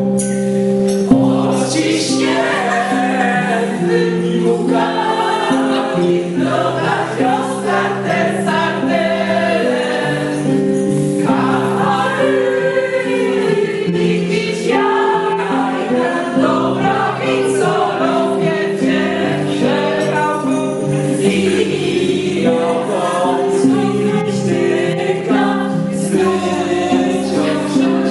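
A small mixed group singing a Christmas carol together into a microphone, over a backing of long held chords, with a tambourine jingling along.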